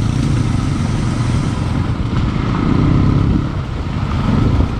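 Bajaj Pulsar NS200's single-cylinder engine running steadily while riding, with wind rushing over the helmet-mounted microphone.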